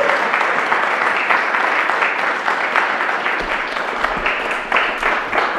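Audience applauding: many people clapping together in a steady, dense patter that carries on throughout.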